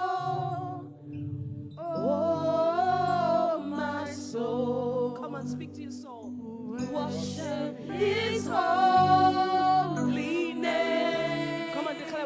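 A worship song sung over sustained chords, with long held sung notes that waver in pitch.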